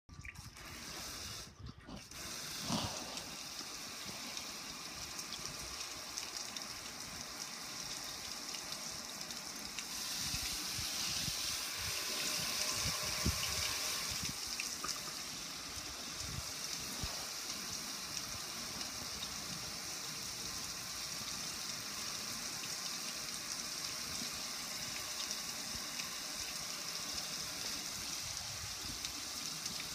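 Water pouring and splashing steadily over a metal gas grill, running off its lid and control panel onto concrete; the splashing grows louder about ten seconds in. A short knock sounds near the start.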